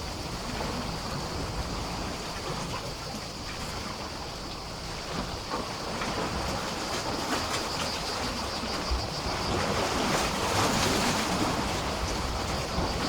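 Sea waves washing and splashing against a pier, swelling louder about two thirds of the way through, with a steady high buzz in the background.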